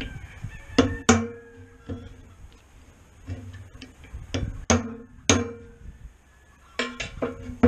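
Hammer striking a steel punch to drive the old bearing out of a disk harrow's bearing housing: sharp metal-on-metal strikes, each with a short ringing tone, coming in uneven groups of two or three with pauses between.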